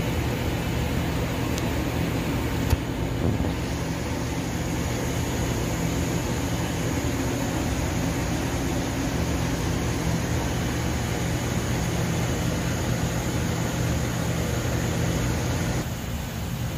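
Steady hum and hiss of aquarium equipment running, with a low droning tone under it. A single sharp click comes a little under three seconds in.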